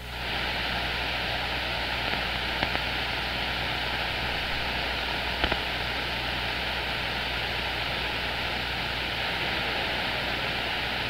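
CB radio receiver hissing with steady band static on an empty channel between transmissions, with a faint click twice.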